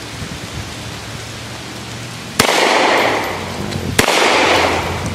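Two shots from a Hi-Point 995 TS 9mm carbine, about a second and a half apart, each followed by an echo that rolls on for about a second.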